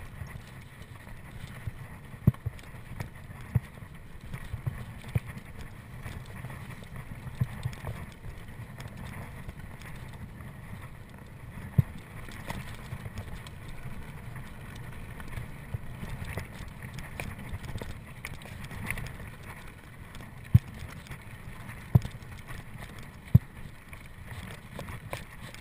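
Mountain bike ridden over a rough dirt trail: a steady dull rumble from the tyres and the ride, with sharp knocks and rattles now and then as the bike hits roots and rocks.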